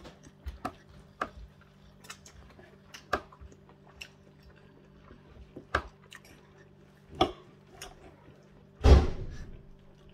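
Mouth sounds of someone eating by hand: scattered wet chewing clicks and lip smacks, with one louder one near the end, over a steady low hum.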